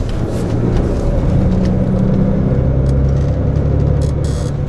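Coach's diesel engine running with road noise, heard from inside the passenger cabin; the engine note shifts in pitch about halfway through. A brief hiss near the end.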